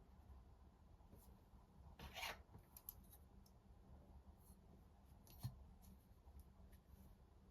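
Faint note-taking sounds: a short scratchy rub of pen on paper about two seconds in, a few light ticks, and a sharper click past the middle, over a low steady hum.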